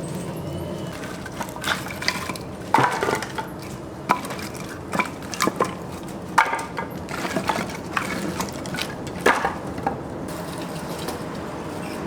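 Irregular knocks and clinks of kitchen work, wood and utensils being handled, over a steady background hum. The knocks fall between about two and ten seconds in.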